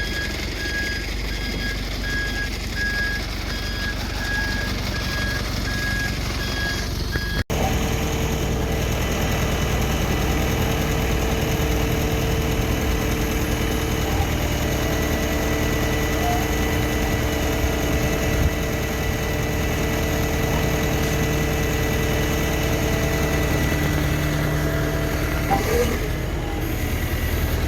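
Recovery truck's reversing alarm beeping repeatedly over its running engine. After a cut, only the truck's engine is heard, idling with a steady low hum.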